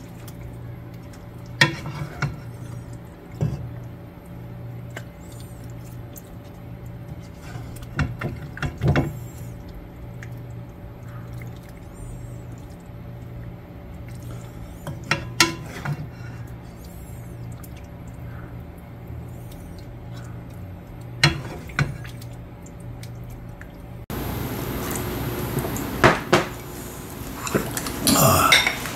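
Wooden spoon scraping and knocking in a pot and clinking on a ceramic bowl as braised mackerel and kimchi is served out, a few scattered knocks over a steady low hum. Near the end, dishes knock on a table.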